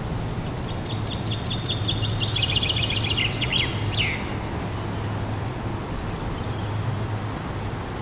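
A small songbird sings one quick phrase of rapid high notes that ends in a downward flourish, from about half a second to about four seconds in, over a steady low background rumble.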